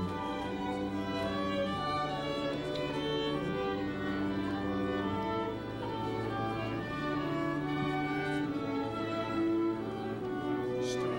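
Slow string music for a wedding processional: a violin playing sustained notes over a low bass line of long held notes that change every couple of seconds.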